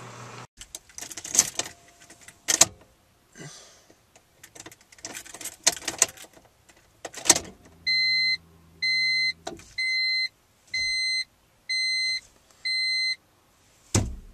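Inside a car: clicks and knocks of keys and car fittings being handled, then a car's dashboard warning chime beeping six times, evenly about a second apart, each beep a steady electronic tone.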